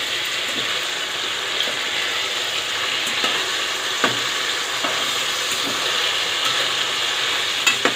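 Chicken breasts frying in sauce in a nonstick pan with a steady sizzle, while a spatula stirs and turns them, scraping and tapping the pan now and then.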